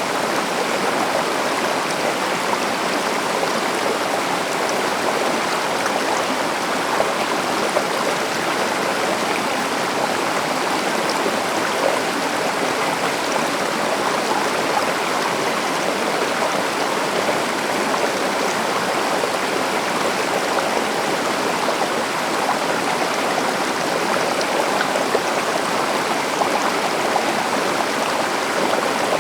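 Forest stream running steadily, water rushing and splashing over rocks in an even, unbroken wash.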